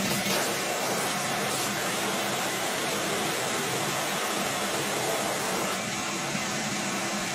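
Vacuum cleaner running steadily, sucking pet hair off a carpeted car floor mat through a narrow crevice nozzle: an even rushing noise with a low hum under it.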